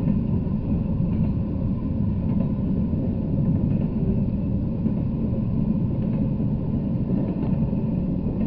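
Double-stack intermodal freight train passing: a steady rumble of wheels on rails, with a few faint clicks.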